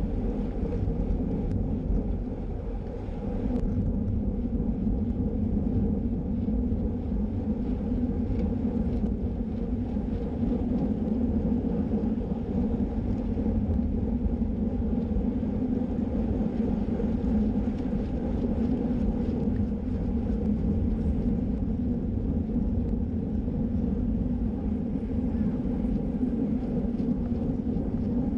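Steady wind rushing over a bike-mounted camera's microphone, mixed with road bike tyres rumbling on tarmac at racing speed.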